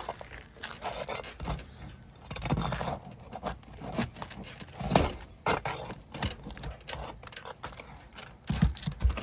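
A metal flat bar scraping and knocking under an asphalt roof shingle, prying it loose as the shingle tears free of its nails. Irregular scrapes with a few sharp clunks, the loudest about halfway through and two more near the end.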